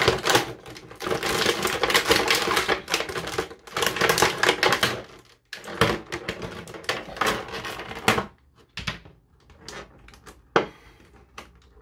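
Clear plastic blister tray crinkling and crackling as it is handled, a dense run of crackles for about eight seconds, then scattered clicks and taps.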